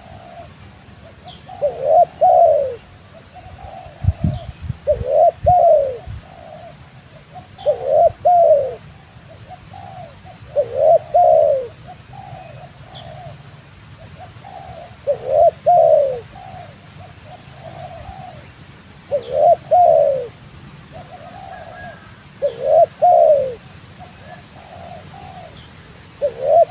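Spotted dove (tekukur), a trained decoy bird, cooing to call in wild doves. It repeats its phrase about every three to four seconds. A few low thumps come about four seconds in.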